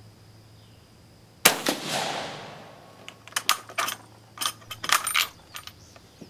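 A single shot from a Vetterli 1870/87/15 rifle converted to 6.5mm Carcano, firing a reduced cast-bullet load, about a second and a half in, with a short echoing tail. Then the rough, loose-fitting bolt is worked open with a string of metallic clicks and clacks.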